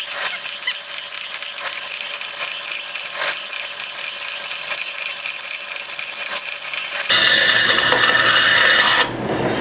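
Homemade metal-cutting bandsaw, converted from a Craftsman wood bandsaw, cutting 3/16-inch steel plate: a steady, dense high-pitched hiss of the blade in the steel with a few short clicks. The sound changes about seven seconds in and drops off suddenly shortly before the end.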